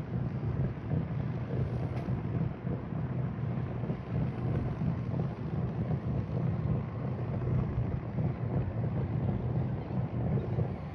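Boat motor running steadily with a low hum, with wind buffeting the microphone.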